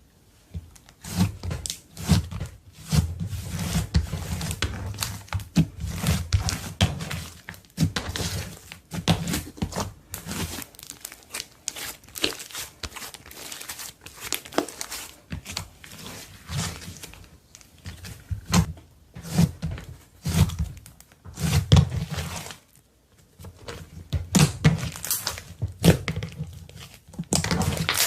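Slime being mixed and kneaded by hand: a dense, irregular run of sticky clicks, pops and crackles over soft low thuds, with a brief lull near the end.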